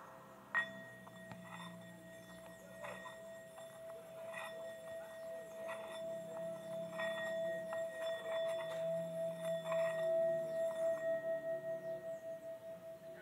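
Metal singing bowl struck once with a wooden mallet about half a second in, then made to sing by circling the mallet around its rim. One steady ringing tone swells with a pulsing wobble, is loudest near ten seconds in, then fades.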